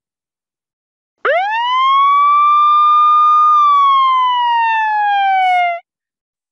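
Dash robot's 'Fire Siren' sound effect, played by the virtual robot in the Blockly web app: one loud siren wail that begins about a second in, sweeps up fast, holds, then slides steadily down and cuts off after about four and a half seconds.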